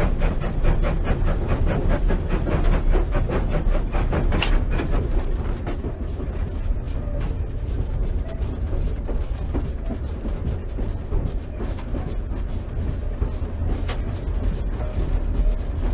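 Steam locomotive heard from its cab, working to draw into a platform: a quick, even run of exhaust beats that fades away about six seconds in, leaving the low rumble of the engine rolling over the rails. A single sharp metallic clank about four and a half seconds in.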